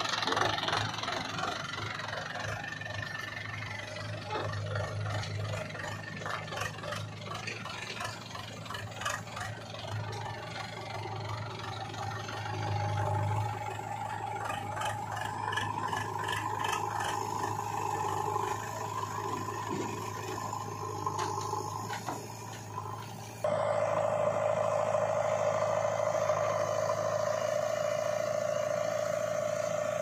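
Diesel engines of an ACE tractor and a JCB 3DX backhoe loader running steadily, with clattering and rattling over the middle stretch. About 23 seconds in, the sound changes suddenly to a louder, steadier engine hum.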